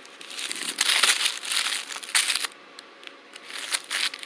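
Firecracker packs crinkling as their wrappers are handled and rustled in the hand, in two bouts with a lull between them.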